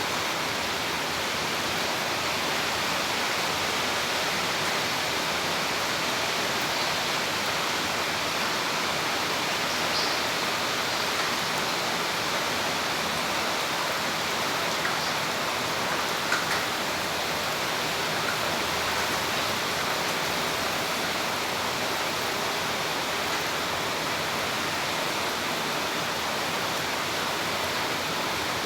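Heavy rain pouring down in a dense, steady hiss, with a couple of brief taps about a third and about halfway in.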